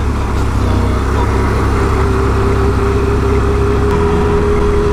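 Can-Am Renegade 1000 ATV's V-twin engine running at a steady, even speed.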